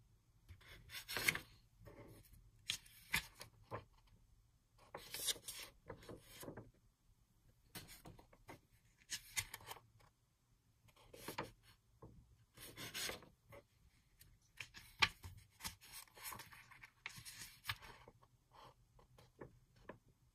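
Pages of a 180 gsm cardstock paper pad being turned one by one, each sheet giving a short papery rustle and slide, about every one to two seconds.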